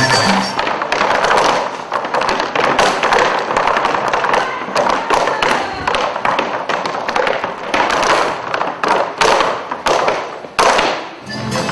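Boots stamping and tapping on a wooden stage floor in fast gaúcho sapateado, with no music: a dense, uneven run of sharp heel and sole strikes that thins out briefly near the end.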